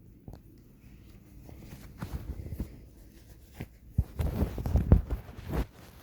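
Handling noise: scattered clicks, knocks and rustling of objects being moved about, louder around two seconds in and again from about four to five and a half seconds.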